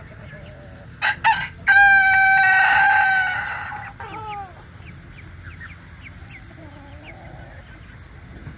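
A rooster crowing once: two short sharp notes about a second in, then a long held crow that fades out near four seconds with a falling end. Faint high chirps and a soft clucking call follow.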